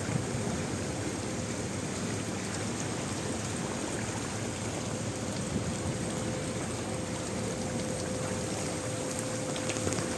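Muddy river in flood rushing steadily below a bridge.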